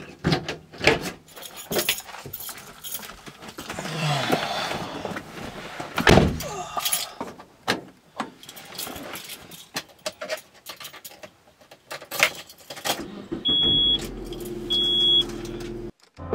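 A person getting into a car: keys jangling and a run of clicks, rustles and knocks, the loudest knock about six seconds in. Near the end a steady hum comes on and a high dashboard chime beeps twice.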